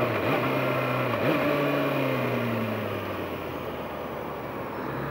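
2012 Kawasaki ZX-6R's inline-four engine on the move: two quick rises in engine pitch about a second apart near the start, then the note falls away and quietens as the bike slows, under a steady wind rush.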